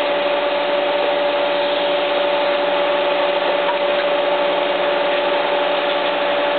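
A steady machine hum with a hiss and a constant mid-pitched tone, unchanging throughout.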